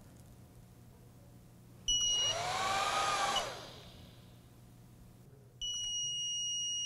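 Rackmount router's small chassis fans spin up with a rush at power-on, with a short high beep, then spin back down and stop. About five and a half seconds in, the motherboard speaker starts one continuous, steady high-pitched beep: the board 'screaming', which the builder takes for the board dying.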